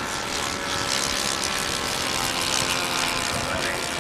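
A radio-controlled model aircraft's engine and propeller running steadily.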